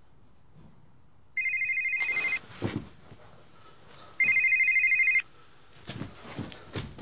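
A telephone ringing twice, each ring a fluttering electronic tone about a second long, the second starting about three seconds after the first. Low thumps and rustles follow each ring.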